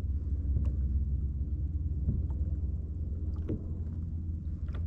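Steady low rumble on the water with a few faint ticks, from out on a kayak.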